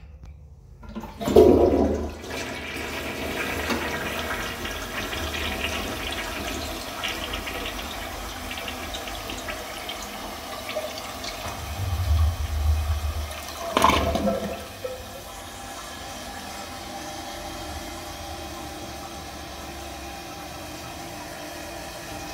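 A tank toilet flushed by its lever about a second in. Water rushes into the bowl, swells again with a gurgling drain about 12 to 14 seconds in, then gives way to the steady hiss of the tank refilling.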